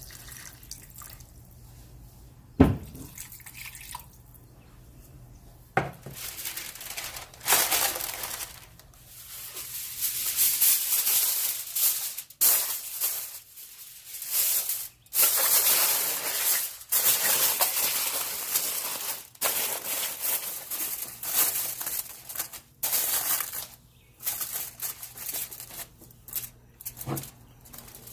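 Two sharp knocks in the first six seconds, then water from a kitchen tap running in irregular bursts into a sink, stopping and starting many times.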